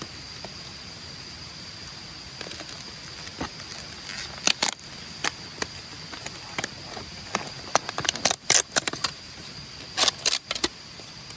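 Irregular sharp clicks and snaps, coming in clusters about four seconds in, around eight to nine seconds in, and again near ten seconds, over a steady high-pitched tone.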